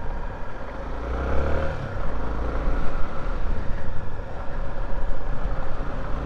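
Single-cylinder 250 cc dual-sport motorcycle engine running as the bike is ridden, rising in pitch as it accelerates about a second in, over a steady low rumble.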